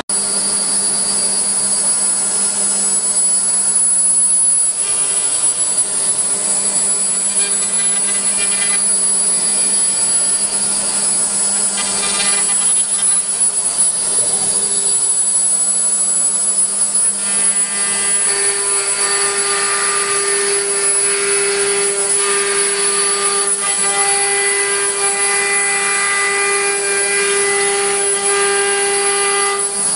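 CNC router spindle running steadily at high speed with a high whine as it cuts grooves into a board on the machine table. About 18 seconds in the low hum drops away and a higher tone grows stronger as the load or speed changes.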